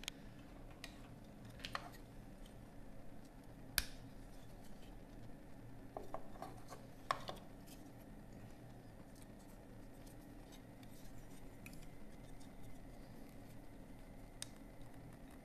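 Small plastic clicks and light scrapes of a laptop fan's housing being handled and its clips prised apart. The clicks are sparse, with the sharpest about four seconds in and a small run of them a couple of seconds later.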